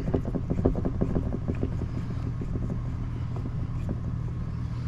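T-handle driver backing a screw, held with Loctite, out of a chainsaw: a quick run of small clicks that thins out after about two seconds, over a steady low hum.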